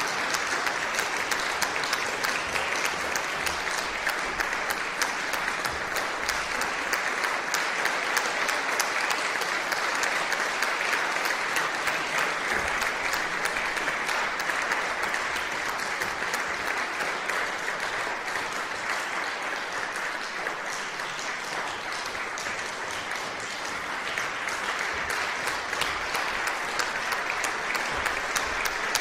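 A large audience applauding in a concert hall: dense, sustained clapping of many hands that eases slightly about two-thirds of the way through, then builds again.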